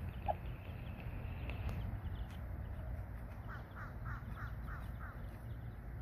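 Young chicks peeping: one short peep just after the start, then a quick run of about six short peeps about three and a half seconds in, over a steady low background rumble.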